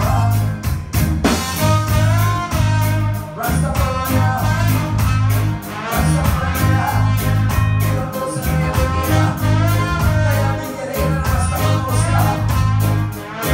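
Live reggae band playing: a heavy bass line and drums with a steady rhythm of sharp guitar strokes, and a man singing lead over it.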